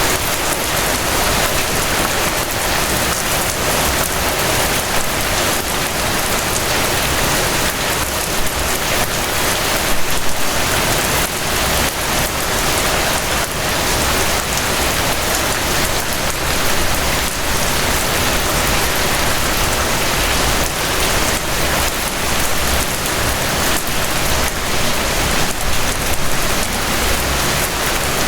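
Steady rain falling, a dense even hiss of countless drops with fine patter throughout.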